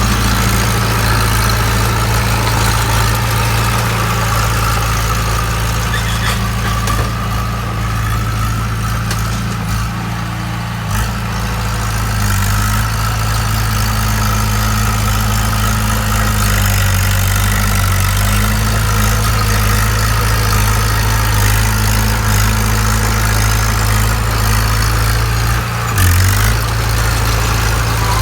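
Bulldozer's diesel engine idling steadily, easing slightly about ten seconds in, with a brief change in pitch near the end.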